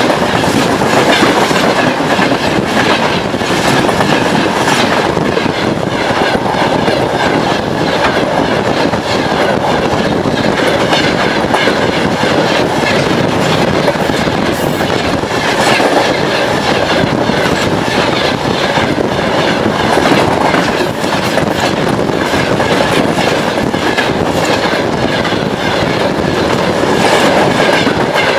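Freight wagons rolling past close at hand: a loud, steady rush of steel wheels on the rails, with a rapid run of clicks as the bogies cross the rail joints.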